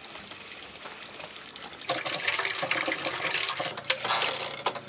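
Water running from a faucet into a boat's galley sink, starting suddenly about two seconds in, with a few knocks. The water system is being run to flush the tank treatment through the lines.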